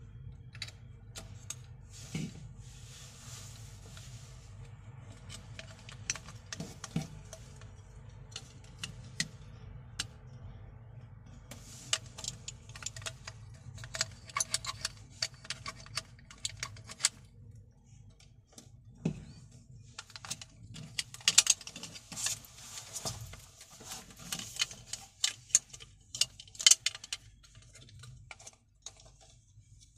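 Hands handling and fitting a clear plastic LED light housing and its small circuit board into a panel cutout: irregular clicks, taps and rattles of plastic parts, busiest in two stretches from about twelve and about twenty seconds in, over a steady low hum.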